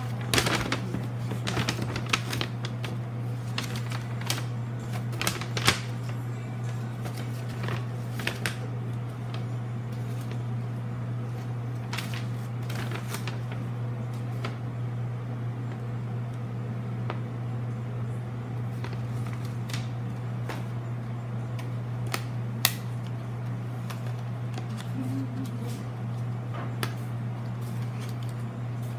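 Folded paper playmat being unfolded and handled, crackling and rustling in short sharp crackles, most of them in the first nine seconds and only a few after, over a steady low hum.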